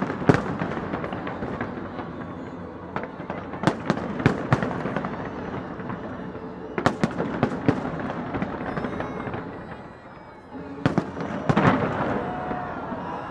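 A fireworks display going off: many sharp bangs and crackles in quick succession. There is a short lull about ten seconds in, then a dense cluster of bangs.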